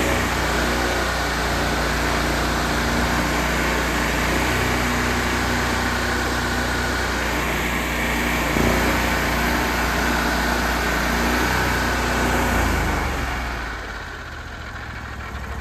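An engine running steadily, then dropping away about 13 seconds in.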